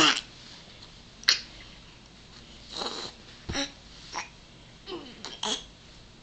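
Six-month-old baby babbling: a string of short squeals and coos, some gliding in pitch, with a sharp click about a second in.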